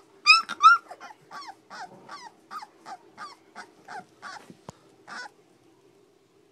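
Young puppy whimpering in a rapid series of short high squealing cries, about three a second. The first two cries are the loudest, and the cries stop a little after five seconds in.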